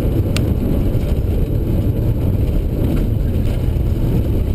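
Rally car's engine and road noise heard inside the cockpit while driving, a steady loud rumble. One short click about a third of a second in.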